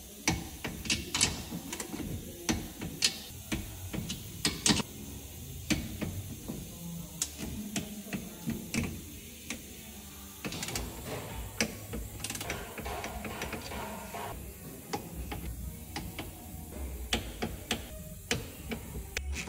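Hand ratchet wrench clicking in irregular runs as bolts are tightened into a caravan's steel chassis, with metal clinks and knocks of the tool against the frame.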